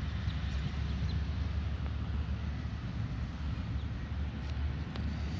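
Wind buffeting the phone's microphone: a steady low rumble with a faint hiss over it.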